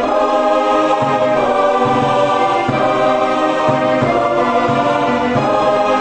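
Background music with a choir singing sustained chords that change every second or so.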